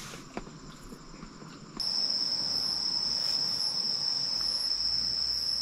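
Night insects singing in one loud, steady, high-pitched trill that comes in about two seconds in, over a soft steady rush of a river. Before it, only faint clicks.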